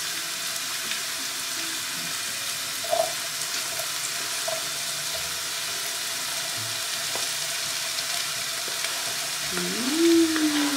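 Oil sizzling steadily in a pot as food fries, with a few light taps as diced bell pepper is pushed from a plastic cutting board into the pot with a wooden spatula. Near the end a short rising-then-falling voice sound is the loudest thing.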